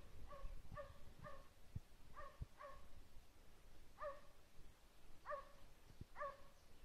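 Hunting hound giving voice on a hare's trail: a faint series of short, pitched barks, about nine of them at uneven intervals.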